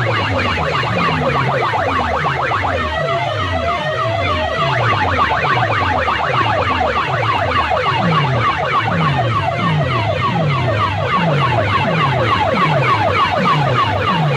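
Large DJ loudspeaker sound system blasting a siren-like effect: a low, falling wail repeats roughly every three-quarters of a second under a dense layer of fast, high, warbling chirps.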